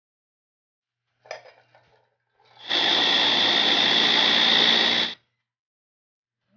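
A brief clatter about a second in, then a small electric food chopper's motor starts up and runs steadily with a high whine for about two and a half seconds before stopping abruptly.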